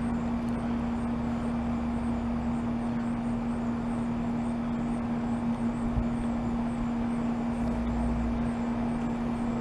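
Steady background hum, a constant low tone over a hiss, with one faint click about six seconds in.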